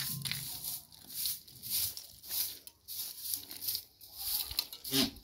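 Short straw hand broom sweeping a dusty stone-and-dirt floor in quick, regular strokes, about two a second. A goat bleats briefly near the end.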